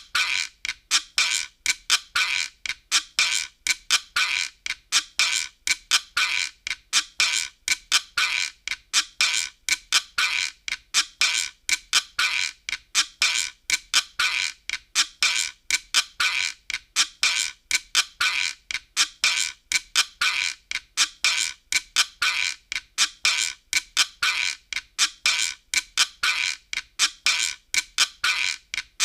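Optigan optical organ playing a looped track that comes out as a steady, fast run of short, sharp, high clicky hits, about three to four a second, with almost no bass.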